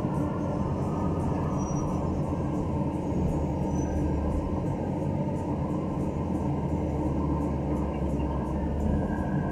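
Steady engine and road noise heard from inside a moving vehicle's cabin, an even low rumble with no sudden changes.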